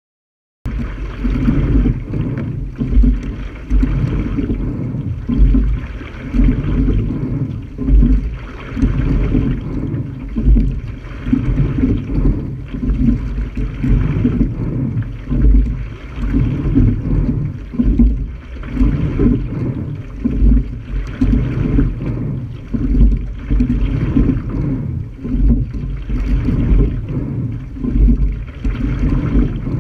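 A single sculling shell moving through the water, its rush of water along the hull swelling about every two seconds with each rowing stroke. Under it runs a steady low rumble of wind on the microphone.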